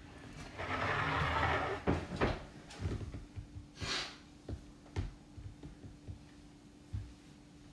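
Ring-pull lid of a metal can peeled back and off, a grating scrape of about a second, followed by several sharp clicks and knocks on the stone countertop and a brief hiss about four seconds in.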